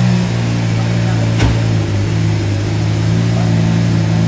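Lamborghini Murciélago LP640 Roadster's V12 engine idling steadily, with a single sharp knock about a second and a half in.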